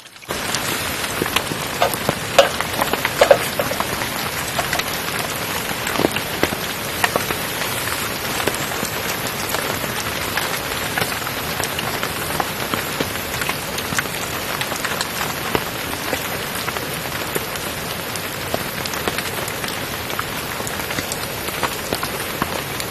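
Steady rain falling, a dense patter with many individual drops tapping sharply on nearby surfaces, a few louder taps in the first few seconds.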